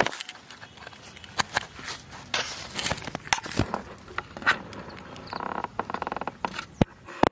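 Scattered clicks and scrapes of hands and a small knife working on a freshly caught catfish over dry leaf litter, with a quick run of rattling scrapes a little past halfway.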